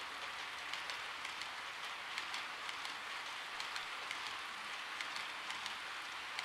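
Model railway flat wagons (JNR Chiki 7000 type) rolling along the track: a steady rolling hiss with light, irregular clicks from the wheels a few times a second.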